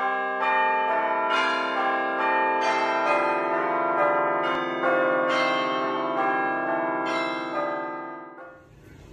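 Festive intro jingle of ringing bells: struck notes overlapping and ringing on, a new strike every second or so, fading out shortly before the end.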